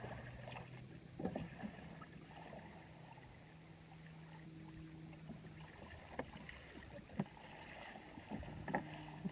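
Faint water splashing and lapping around an open canoe as it is heeled over and the paddle blade works flat on the water in a low recovery stroke. A few sharp knocks of paddle or body against the hull stand out, the loudest in the last few seconds.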